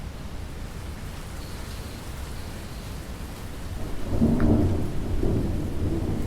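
Steady rainfall, with a low rumble of thunder rolling in about four seconds in and carrying on as the loudest sound.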